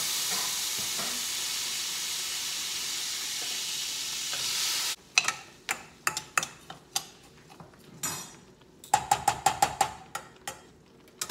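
Food sizzling in a hot frying pan, a steady hiss that stops abruptly about five seconds in. Then metal utensils clink and scrape against the pans as the food is stirred, with a quick run of ringing taps near the end.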